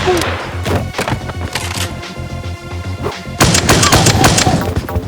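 Action background music with a steady beat, overlaid by gunshot sound effects: single shots in the first seconds, then a rapid volley of shots about three and a half seconds in.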